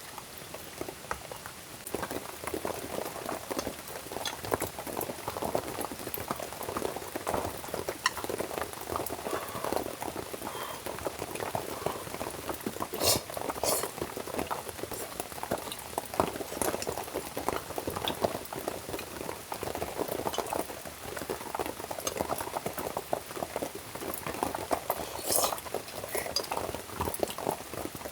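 Liquid bubbling at a steady simmer in a pan over a campfire, a dense stream of small pops, with a couple of sharper ticks.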